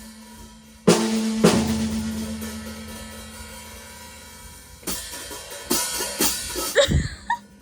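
Drum kit played by hand: a loud cymbal crash with drum hits about a second in, left ringing down for several seconds, then a quick run of drum and cymbal hits near the end.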